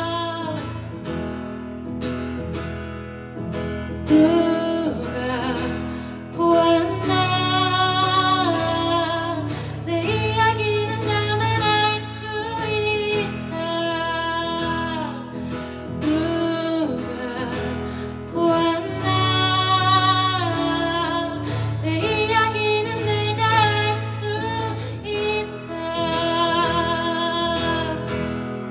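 A woman singing held notes with vibrato over strummed acoustic guitar, a live song performance.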